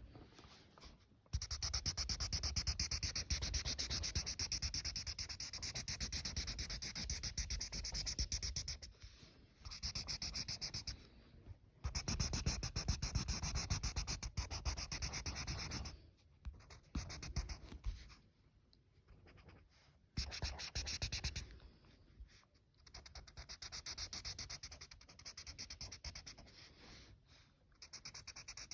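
A drawing tool scratching across paper in runs of quick back-and-forth colouring strokes, broken by short pauses.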